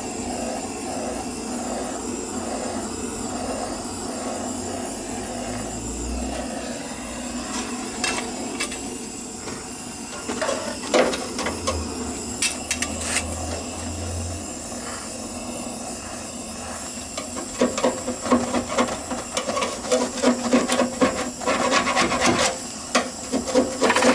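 Handheld rotary power tool running against the underseal inside a car's steel wheel arch, with a steady motor hum and rasping, scratching contact. The scraping turns rougher and louder about two-thirds of the way through as the tool bites harder into the coating and metal.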